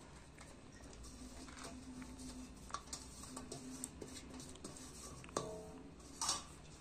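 Faint light taps and scrapes of a utensil in a metal cooking pot as rice is spread in a layer, with a ringing metal clink about five seconds in and a short scrape near the end.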